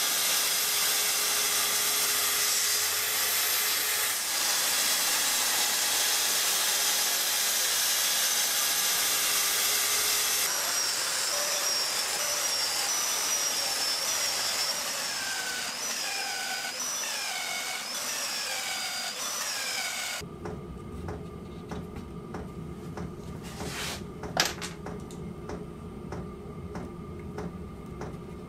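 Festool plunge track saw cutting MDF along its guide rail, its motor and dust extractor running together as a loud, steady whine. About halfway through, the whine starts dipping and recovering in pitch roughly once a second as the blade loads up. It cuts off abruptly about two-thirds of the way in, leaving a quieter workshop background with one sharp knock.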